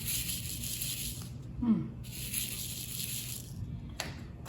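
Small resin diamond-painting drills rattling in a plastic sorting tray, shaken twice, each spell lasting a second or so, to turn the drills right side up.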